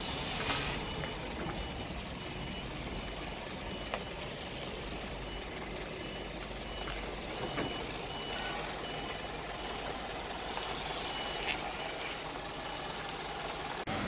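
A site vehicle's reversing alarm beeping steadily over the low running of a truck engine, the beeps fading about halfway through. A sharp knock about half a second in.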